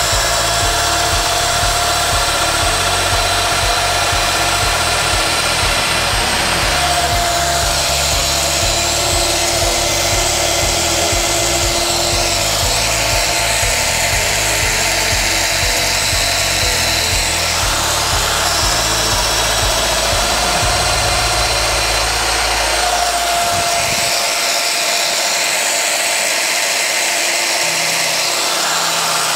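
Festool Domino joiner running and plunge-cutting mortises into a tulip wood board for floating tenons, its motor whine shifting as the cutter goes in and comes out. Background music plays under it.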